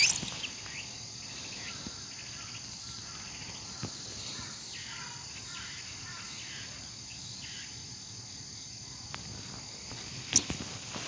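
Steady, high-pitched outdoor insect chorus of crickets chirring in the surrounding vegetation. There is a single sharp knock near the end.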